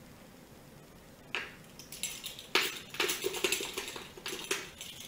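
Metal measuring spoon clinking and scraping against a can of baking powder as it scoops out a spoonful. A single click about a second and a half in, then a busy run of clicks and scrapes that dies away near the end.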